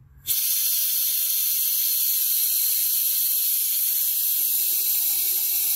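Compressed air at about 110 psi hissing steadily through a Four Uncles pneumatic vacuum brake bleeder while its lever is held down, drawing brake fluid out of the master cylinder reservoir. The hiss starts sharply just after the start and cuts off abruptly near the end as the lever is released.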